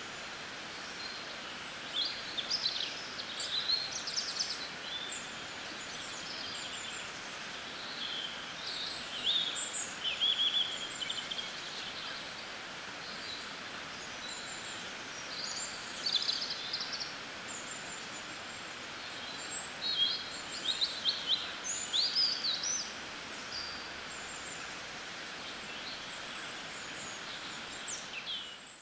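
Small birds chirping and trilling in short high calls over a steady outdoor background hiss, the calls coming in busy clusters separated by quieter stretches of hiss.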